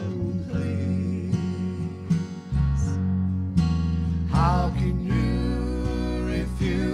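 Live gospel band music: strummed acoustic guitar over an electric bass line. A short sung phrase comes in a little over four seconds in.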